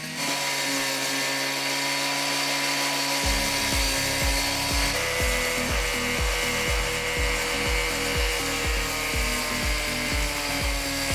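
Background music: sustained tones, with a steady kick-drum beat coming in about three seconds in, about two beats a second.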